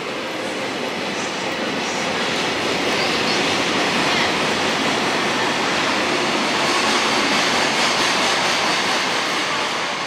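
A train running past on the station tracks: a steady rushing noise of wheels on rail that builds up and then eases off near the end.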